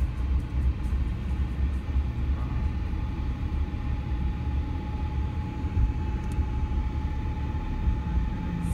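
Low rumble of a car's engine and tyre noise on the road, heard from inside the moving car. A thin steady tone sets in about two and a half seconds in and holds.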